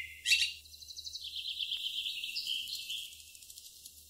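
Bird song sound effect: a short high chirp, then a quieter, fast, high twittering trill that fades near the end.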